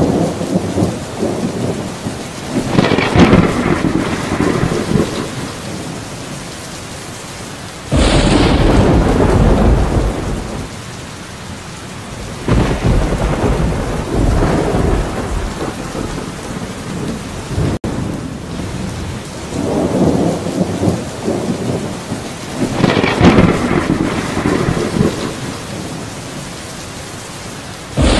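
Steady heavy rain with rolling thunder that swells and fades several times. A sudden loud clap of thunder breaks in about eight seconds in, and another near the end.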